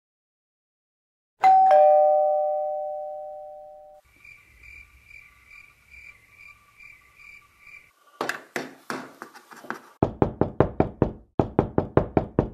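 A doorbell rings a two-note ding-dong, the second note lower, which rings out and fades over a couple of seconds. Later comes rapid knocking on a door in several quick bursts, the heaviest near the end.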